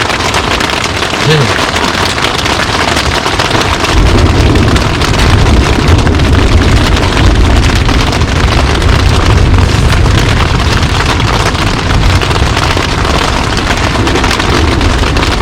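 Steady loud hiss like rain or rushing water, joined about four seconds in by a heavy low rumble.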